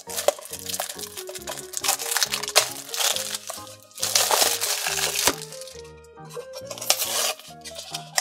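Thin plastic shrink-wrap crinkling and crackling in several loud bursts as fingers peel it off a small cardboard box, over steady background music.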